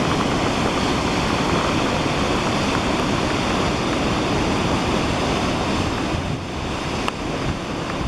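Steady rushing hiss of a tall waterfall plunging down a rock face, with wind rumbling on the microphone.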